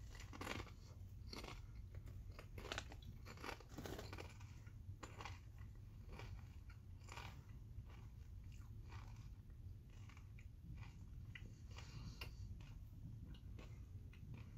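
Close-up crunching and chewing of kettle-cooked potato chips in a person's mouth: irregular crisp crunches roughly once a second, loudest in the first few seconds.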